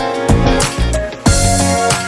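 Background music with a steady beat: plucked and strummed guitar over drums.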